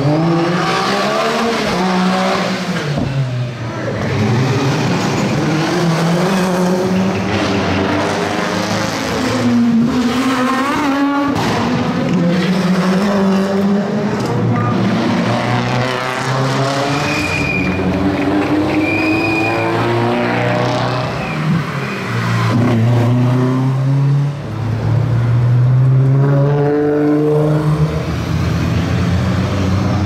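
Rally cars accelerating hard past, one after another, with engine revs climbing and dropping through gear changes and brief tyre squeal.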